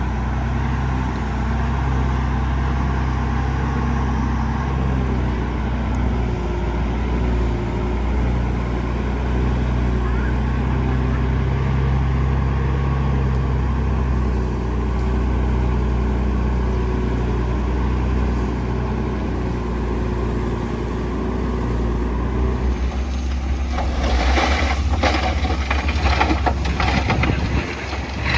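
Bulldozer's diesel engine running steadily, with a stretch of clattering and knocking in the last five seconds or so.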